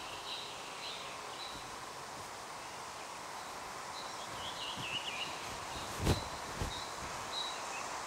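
Forest ambience: a steady hiss with faint, wavering high bird chirps at the start and again around five seconds in. A single sharp thump comes about six seconds in and is the loudest sound, with a softer one just after.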